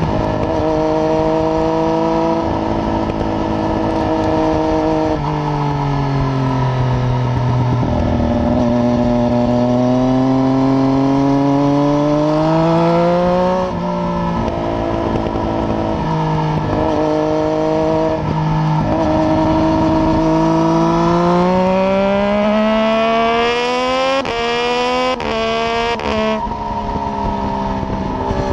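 Triumph Daytona 675's three-cylinder engine through a decatted header and baffle-less Arrow exhaust, ridden hard on a track, its note rising and falling through the corners. Near the end it revs up hard and the pitch drops sharply three times in quick succession as it shifts up through the gears with its quickshifter.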